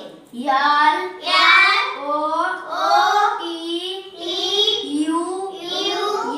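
A boy chanting flower names from a chart in a sing-song voice, one short phrase after another.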